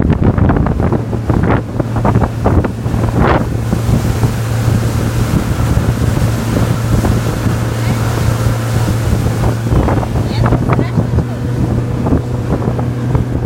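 Motorboat engine running at a steady drone, with wind buffeting the microphone in gusts, heaviest in the first few seconds, and water rushing past the hull.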